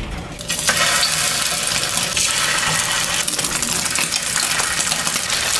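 Tap water running steadily from a kitchen faucet into a mixing bowl of dry pancake batter mix. It starts about half a second in.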